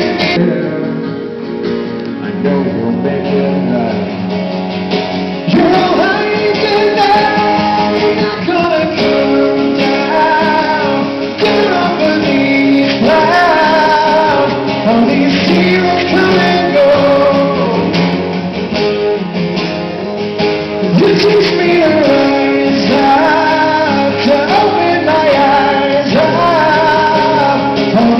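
Live acoustic performance: two acoustic guitars playing with a man singing lead.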